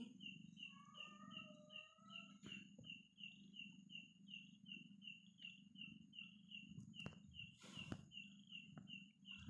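A night insect chirping steadily, short high chirps at about three a second. About a second in there is a faint rising squeak, and there are a few soft knocks.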